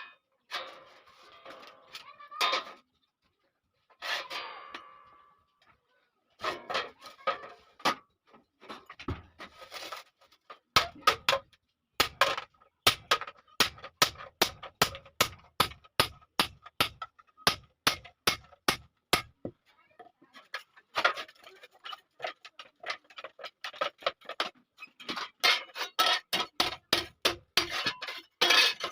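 Hand hammer striking iron on an anvil while forging a hasuwa blade: a steady run of sharp metallic blows, about two a second, each ringing briefly, with faster, denser strikes near the end. The first few seconds hold only scattered, irregular noises.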